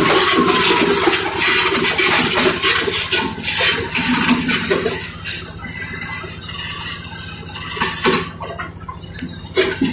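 Large Caterpillar crawler bulldozer working up close: its diesel engine runs steadily beneath the clanking of steel tracks and grinding rubble. Loudest in the first half, then easing off, with a few sharp clanks near the end.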